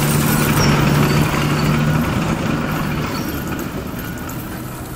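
Hydraulic excavator's diesel engine idling with a steady low hum that drops away about two to three seconds in, the whole sound slowly fading.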